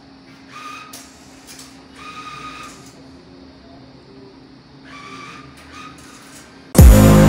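Banknote acceptor of a PTCL bill-payment kiosk drawing in notes: three short motor whines of about half a second each, over a steady low hum. Loud music cuts in near the end.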